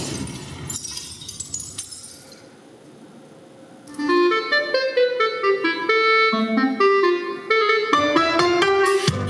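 Breakbeat DJ mix: the full beat drops away over the first couple of seconds into a brief lull. From about four seconds in, a melodic instrumental phrase of single stepped notes plays, and the full beat kicks back in near the end.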